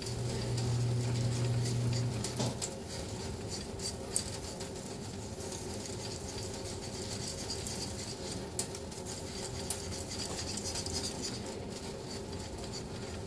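Steel boning-knife blade stroked back and forth on a wet 3000-grit finishing whetstone: a run of soft, repeated scraping strokes as the edge is refined. A low hum sounds under the first two and a half seconds.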